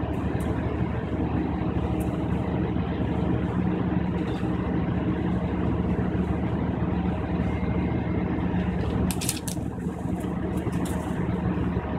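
Class 153 diesel railcar's underfloor Cummins diesel engine running steadily under way, heard from inside the carriage with wheel and track noise. A short rattle of clicks about nine seconds in.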